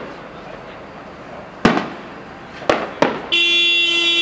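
Fireworks going off: three sharp bangs a second or so apart. Near the end, a ship's horn starts one long, steady blast on a single note, louder than the bangs.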